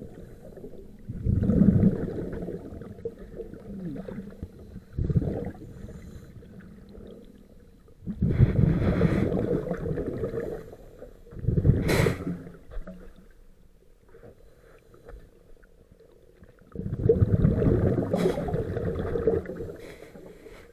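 Scuba diver's exhaled breath bubbling out of the regulator underwater, a low rumbling gurgle in several bursts of a couple of seconds each with quieter gaps between.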